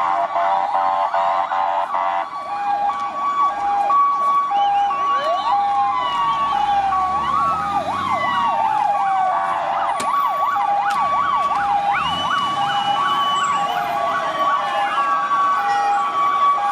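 Several emergency-vehicle sirens sounding at once: a two-tone siren switching back and forth between two pitches, overlapped by fast up-and-down yelping sirens and slower rising and falling wails.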